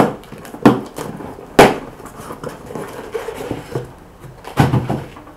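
Unpacking glass candle jars from a shipping box: a few sharp knocks and clatters, the loudest about a second and a half in, with rustling of packing material between and a cluster of knocks near the end.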